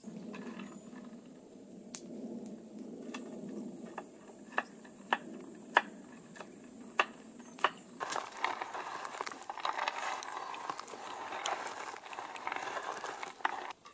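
Knife chopping walnut kernels on a wooden cutting board: single sharp knocks about every half second to a second. From about eight seconds in, hands crumble the walnuts on the board with a dense crackling.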